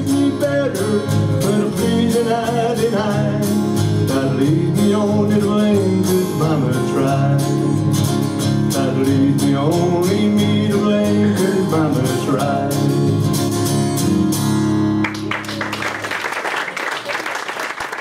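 Live country band of electric bass, electric guitar and acoustic guitar playing the instrumental ending of a song, stopping on a final chord about fifteen seconds in. Audience applause follows.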